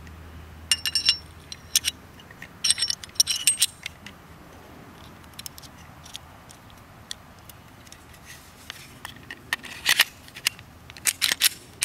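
Clicks and clinks of a field-stripped Glock 43 pistol being put back together by hand: the barrel fitted into the slide, then the slide run onto the frame. Sharp clicks, some with a short metallic ring, come in bunches about a second in and around three seconds in, and most densely near the end as the slide goes on.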